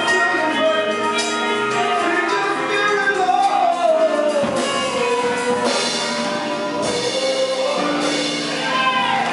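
Male gospel singer singing live through a handheld microphone and the church PA, with long held notes that slide and bend, over sustained keyboard chords from a live band.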